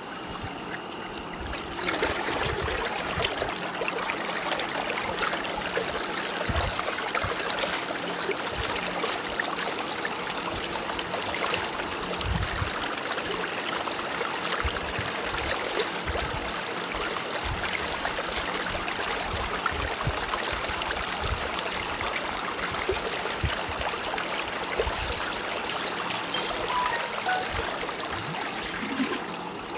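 Shallow stream water running and splashing around a pot as it is dipped and rubbed by hand, with occasional low thuds. The splashing gets louder about two seconds in.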